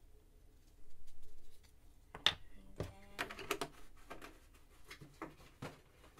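Light knocks and clicks of plastic kitchen containers being handled and set down on a countertop: a plastic milk jug, a small measuring cup and a small food-colouring bottle. The knocks come irregularly from about two seconds in, the sharpest two close together near the start of them.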